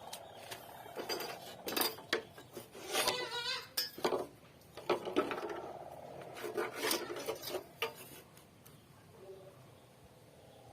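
Irregular knocks, clatter and scraping of hand tools being worked on a wooden beam, with a short warbling call from a chicken about three seconds in.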